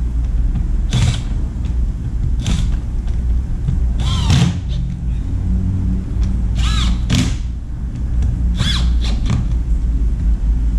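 Screws of a plastic air-filter housing cover being driven tight with a hand driver, with several short squeaks as they turn. A steady low hum runs underneath.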